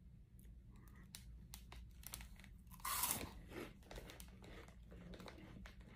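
Biting into and chewing a crunchy Flamin' Hot Cheetos pepper puff dosed with hot sauce: one loud crunch about three seconds in, then softer repeated crunching.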